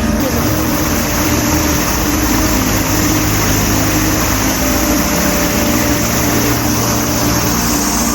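Steady loud rushing noise with a low hum underneath.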